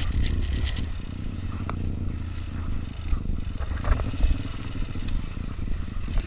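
Motorcycle engine running at low revs, a steady low pulsing rumble heard from the rider's seat, with a few short clicks and knocks from the bike rolling over rough ground.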